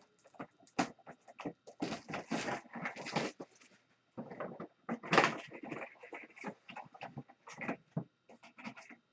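Trading card packs and their box being opened: irregular crinkling and tearing of foil wrappers and cardboard, in short bursts with brief pauses.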